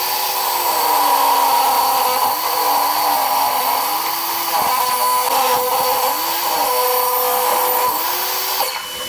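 Table saw running while a walnut board is ripped along the fence: a loud, steady machine sound whose pitch dips and recovers several times as the blade takes the load of the cut.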